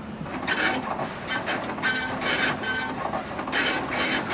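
Printer printing in quick short buzzing bursts, line after line, several a second, with a brief pause about three seconds in.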